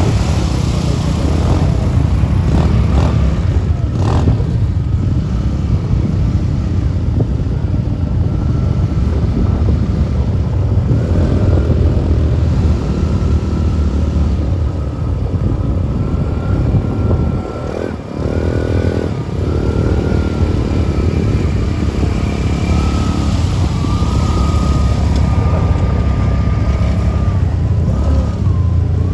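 A motor vehicle engine running steadily under way, a loud low rumble with a thin wavering whine above it; it eases briefly about eighteen seconds in.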